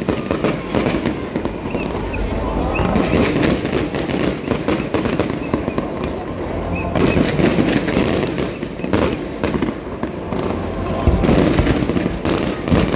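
Fireworks display: a dense, unbroken barrage of bangs and crackling shells, loudest in the last couple of seconds.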